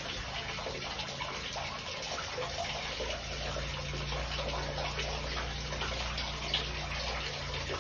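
Steady running water feeding a fish pond, with a low hum underneath that fades out near the end.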